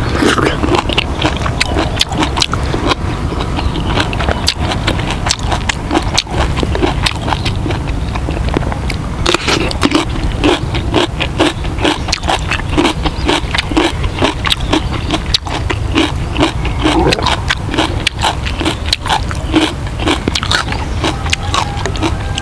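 A man chewing a mouthful of grilled fish and rice close to a clip-on microphone, with wet mouth clicks and smacks and a steady rhythm of about two chews a second through the middle, over a steady low rumble.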